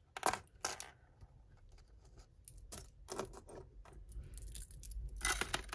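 Costume jewellery clinking and jingling as hands rummage through a heap of metal pieces and beads: scattered small clicks, the strongest just after the start and a cluster near the end.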